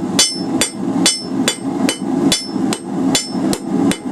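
Cross-peen hammer striking hot steel bar on an anvil in a steady rhythm of about two and a half blows a second, each blow ringing briefly. The blacksmith is drawing out and smoothing the flattened end of the bar.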